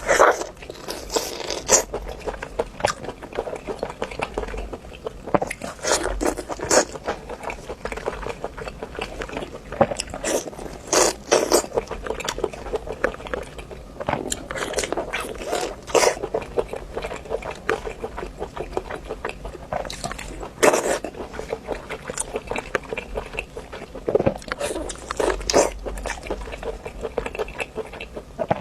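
A person eating close to the microphone: repeated bites and chewing, with loud crunchy clusters every few seconds.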